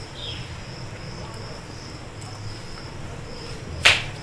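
A single sharp knock against the aluminium cooking pot near the end, over a steady high-pitched pulsing chirr and a low hum.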